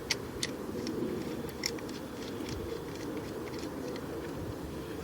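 Light, irregular clicks and taps of a ratchet and socket on the engine as the 10 mm ignition-coil bolts are loosened and removed, over a steady low hum.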